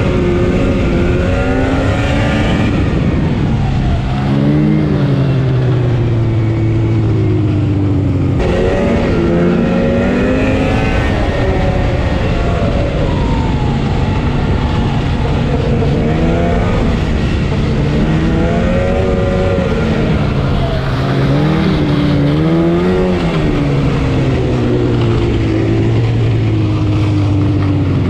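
Yamaha Phazer snowmobile's two-stroke twin engine running on the trail, its pitch climbing and dropping again and again as the throttle is opened and eased off. There is an abrupt break in the sound about eight seconds in.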